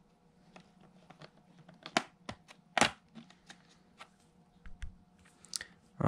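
Plastic pry tool or card working along the seam of an HP Omen laptop's plastic bottom cover as a corner is pried up: scattered light clicks and scrapes, with two louder sharp clicks about two and three seconds in.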